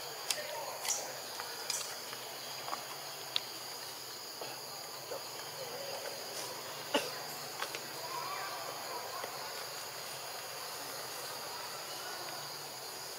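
Steady high insect drone in the trees, with scattered sharp clicks and snaps, a few in the first seconds and the loudest about seven seconds in.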